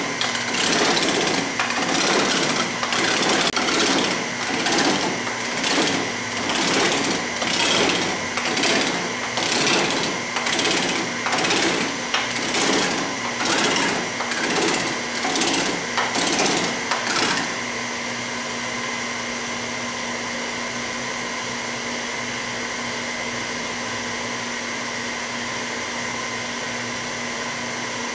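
P-Max Pullmax-style reciprocating power hammer working a sheet-metal panel between its dies: a rapid mechanical chatter that swells and fades about once a second. About seventeen seconds in the hammering on the panel stops and the machine runs on with a steady hum.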